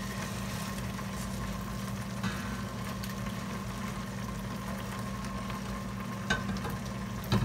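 Steady low kitchen-appliance hum with a faint higher tone, with a few light clinks of a ladle and spatula against the pot as broth is ladled over the rice and leeks.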